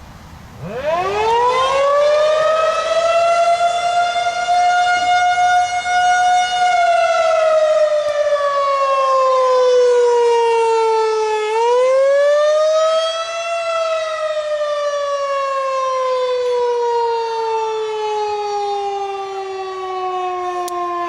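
Federal Signal 2001-130 electromechanical outdoor warning siren winding up to full pitch in its first two seconds and holding a steady wail. After about six seconds its pitch slowly sags, rises again briefly around twelve seconds in, then winds down slowly.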